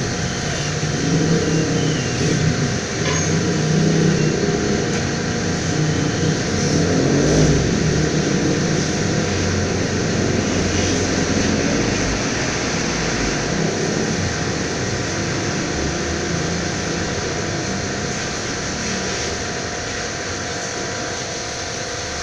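Lakoni Daytona 100 high-pressure washer running: a steady mechanical drone from its motor and pump.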